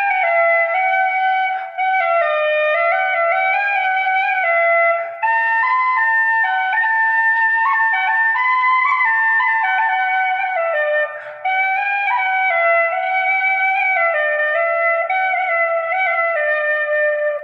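Irish flute playing a solo melody, moving stepwise in pitch with held notes, with brief breath pauses about five and eleven seconds in.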